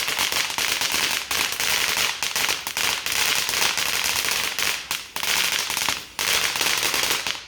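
A firework crackling: a dense, rapid storm of small pops with brief lulls about five and six seconds in, then it cuts off suddenly.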